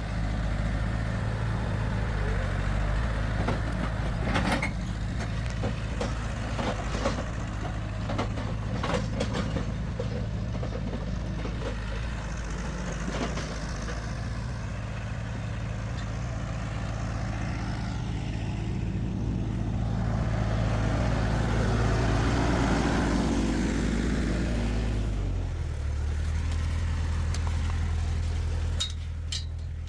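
Farm tractor engine running steadily as it drives, with scattered knocks and rattles. About 25 seconds in, the engine note shifts.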